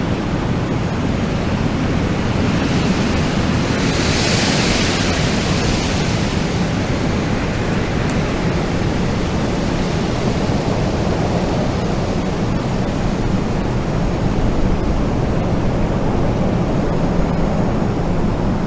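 Wind blowing steadily, with a stronger, hissier gust swelling about four seconds in and easing off by about seven seconds.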